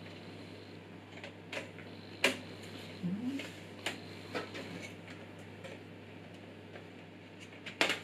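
Scattered light clicks and knocks as a magnetic dust filter is handled and fitted against a PC case's frame, the loudest a sharp knock a little over two seconds in, over a steady low hum.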